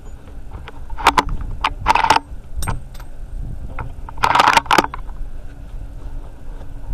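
Handling noise from a bolt-action rifle being moved: a scattering of sharp clicks, knocks and rattles, with two longer scraping rustles about two seconds in and again about four and a half seconds in.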